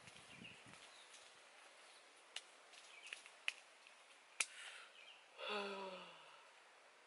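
A young man's drawn-out groan while stretching, falling in pitch, about five and a half seconds in. A few sharp clicks come before it.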